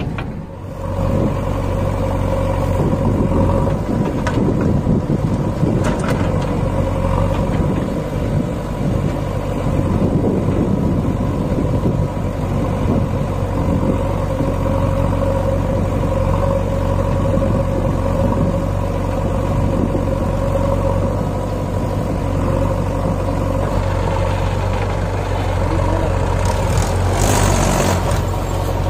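Diesel engines of a farm tractor and a JCB backhoe loader running steadily side by side, a continuous low drone.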